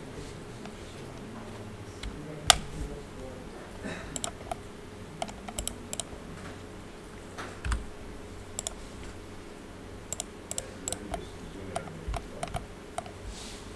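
Scattered clicks of a computer keyboard and mouse, singly and in quick little clusters, with one louder click about two and a half seconds in, over a faint steady hum.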